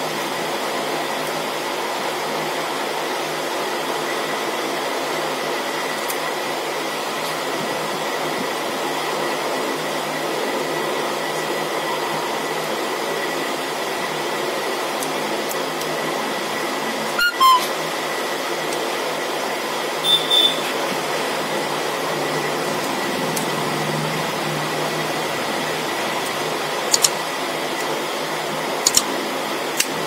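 Steady whir of a running electric fan. A few faint clicks sound over it about halfway through and near the end, as small phone parts are handled.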